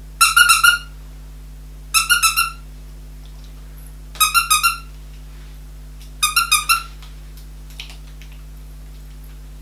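Squeaker inside a plush moose dog toy squeezed by hand in quick runs of four or five high squeaks, four runs about two seconds apart.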